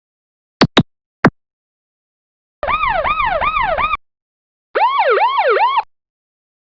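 Electronic alarm sound effects. Three quick zaps sweep sharply downward in pitch, then two separate bursts of a fast yelping siren follow, each about a second long and rising and falling several times a second. The second burst is lower and swings wider than the first.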